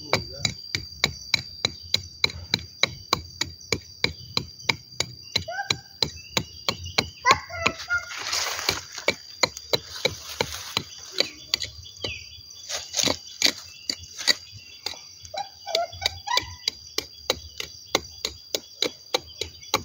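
Small knife blade chopping into a durian tree's trunk, cutting out the rotten, blackened bark and wood of a trunk canker. The short sharp strikes come steadily, about two to three a second.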